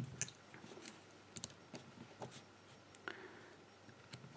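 Faint, scattered small metal clicks and ticks from a picked lock cylinder being handled while its retaining clip is worked at.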